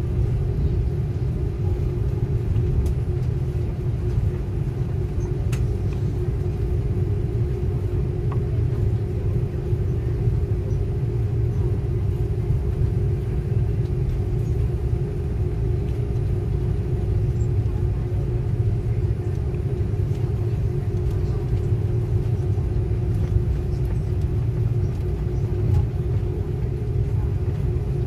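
Airliner cabin noise with the plane on the ground and its jet engines running: a steady low rumble with a steady droning hum through it.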